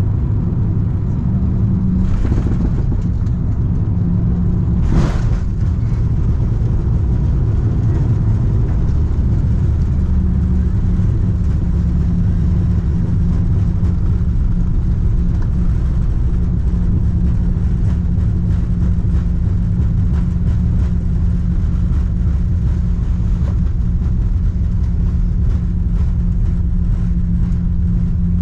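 Airbus A340-300 cabin noise heard from a passenger seat: a steady heavy rumble of the aircraft. There is a short knock about five seconds in, and a steady hum joins at about ten seconds.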